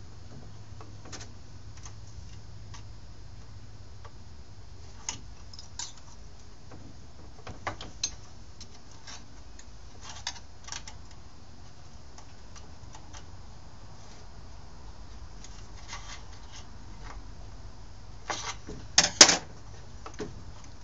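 Scattered clicks and light metallic taps of hand tools on a vintage Stihl S10 chainsaw while it is being put back together, with a louder burst of clatter near the end. A faint steady low hum runs underneath.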